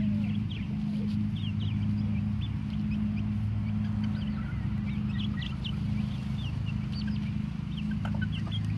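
Chickens giving many short, high-pitched chirps and soft clucks, scattered throughout, over a steady low hum.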